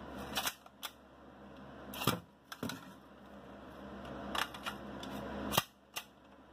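Metal magazine being pushed into and released from the magazine well of an AR lower receiver: a series of sharp metallic clicks and clacks from the mag catch and the magazine body, the loudest near the end. The newly fitted ambidextrous magazine release lets the magazine drop at the lightest touch, which the owner sees as a possible problem.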